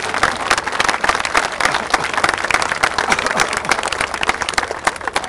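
Crowd applauding, with dense, irregular hand claps and one person clapping close by.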